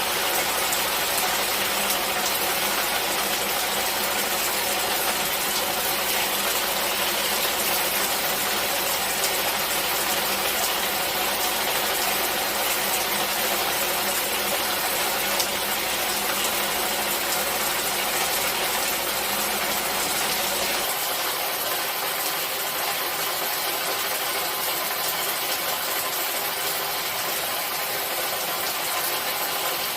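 Steady rainfall: a dense, even hiss of falling drops with faint scattered patter. A low rumble underneath drops away about two-thirds of the way in.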